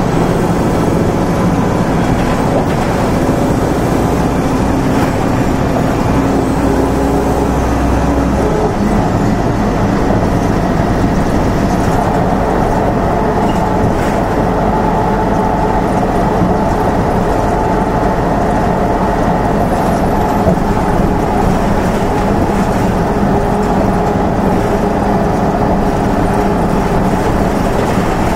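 1996 Nova Bus RTS-06's Detroit Diesel Series 50 four-cylinder diesel engine and Allison VR-731 transmission running, heard from on board the bus. The engine note changes about eight seconds in.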